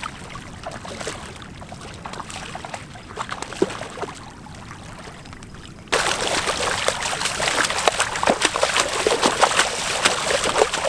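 Water splashing as a hooked bat ray thrashes in the shallows while being landed. Light, scattered splashes at first, then about six seconds in a sudden, much louder run of continuous heavy splashing.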